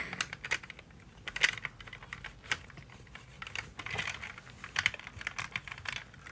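A toy car being wiped with a cloth and pressed and moved about on a wooden floor: irregular light clicks, taps and scuffs of its plastic and wheels against the boards, with cloth rubbing.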